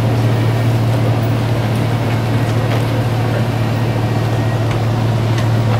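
A steady, low engine hum running without change, with a few faint clicks over it.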